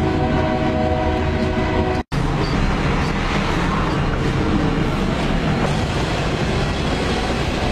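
Freight train horn sounding a steady chord for about two seconds, cut off abruptly. Then the steady rumble and rail noise of freight cars rolling past close by.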